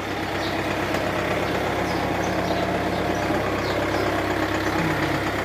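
2007 Kia Carnival engine idling steadily and evenly, running clean and smooth now that its no-start fault has been fixed.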